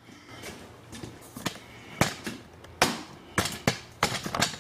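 Hard plastic knocks and clacks as the BMW 128i's plastic air filter housing cover is worked loose and pulled off by hand: a few sharp separate knocks, then a quicker cluster near the end, over a faint low hum.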